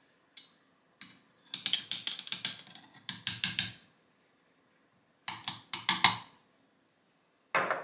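Metal catch cup of a hand coffee grinder tapped and shaken over an espresso portafilter to empty the ground coffee: two runs of quick metallic clicks and taps, the first starting about a second and a half in and the second around five seconds in, with one short knock near the end.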